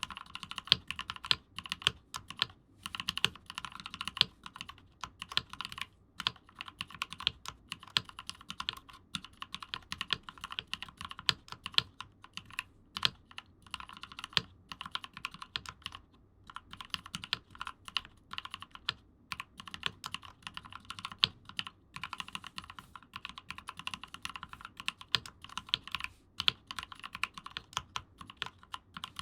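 Continuous typing on a mechanical keyboard fitted with Gateron silent ink switches, lubed with Krytox 205g0 and filmed, under GMK doubleshot keycaps in a weighted aluminium Rama Koyu case. It is a fast run of soft, damped key strokes, broken by a few brief pauses.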